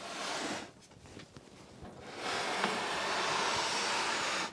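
A heavy TRS-80 Model II computer being dragged and turned on a desktop: a short stretch of scraping, then a longer one from about halfway through that stops abruptly.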